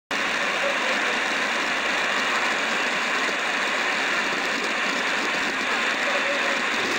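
Steady roar of Niagara's Horseshoe Falls: a dense, even rushing of water pouring over the brink, without a break.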